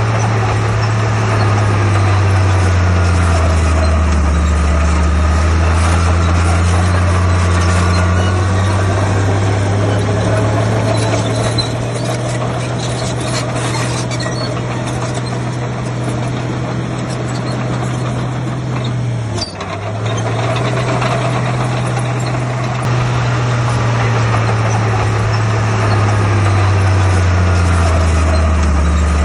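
Heavy diesel engine of earthmoving machinery running steadily, a low drone that shifts slowly in pitch, with a brief dip about twenty seconds in.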